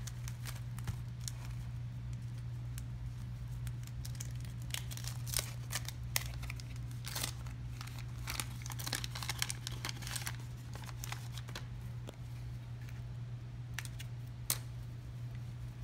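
A 1986 Topps wax-paper card pack being torn open and its wrapper crinkled, in an irregular run of crackles and rustles that is thickest in the middle. A steady low electrical hum runs underneath.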